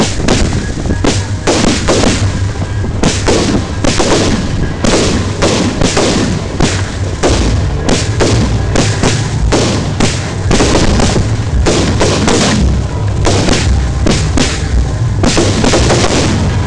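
Fireworks going off at close range in rapid succession, two or three sharp bangs a second over a steady low rumble.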